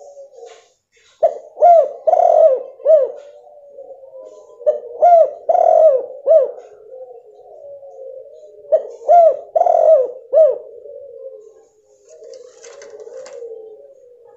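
Female spotted dove (tekukur) cooing: three loud phrases of several arched notes each, with soft, low cooing between them. It is the female call used as a lure to set a male that has gone silent calling.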